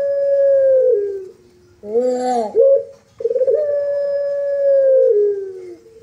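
Puter (Barbary dove) cooing: the end of one long, held coo that drops in pitch about a second in, then a short arched note and another long coo that steps down in pitch near the end.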